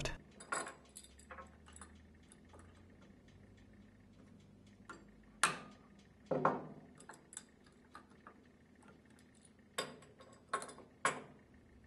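Soft-headed hammer tapping a steel tool against the lock nut and lock washer on the end of a Viking internal gear pump's shaft: several sharp metallic taps with a brief ring, about halfway through and again near the end. Light clinks of metal tools and parts being handled and set down on the workbench come in between.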